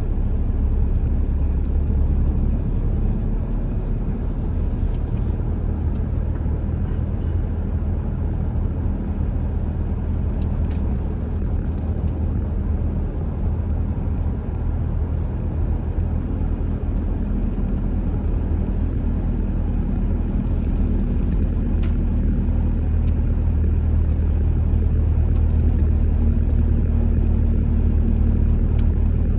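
Car driving at a steady speed: a continuous low rumble of engine and tyres on the road.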